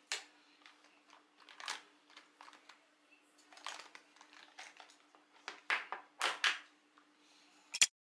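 Hands handling a small fabric pouch and its contents on a table: irregular rustling and crinkling, with a sharp click just before the end.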